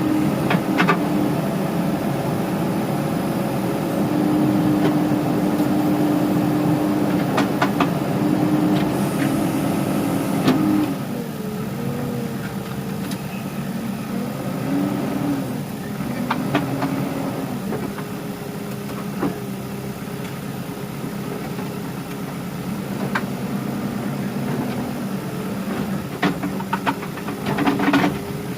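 Backhoe loader's diesel engine running, its pitch dipping and rising several times about halfway through, with a few sharp knocks.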